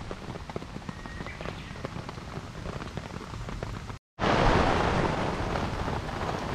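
Wood fire crackling in a steel fire stand, with a steady patter of rain. After a cut about four seconds in, a much louder rushing hiss comes as air is blown into the fire through a fire-blowing pipe.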